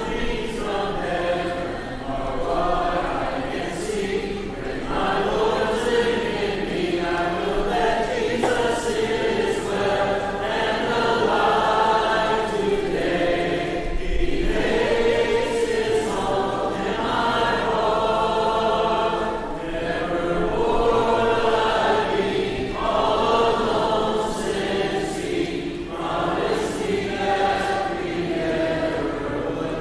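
A congregation singing a hymn together in unaccompanied four-part harmony, with sustained phrases and brief breaths between lines.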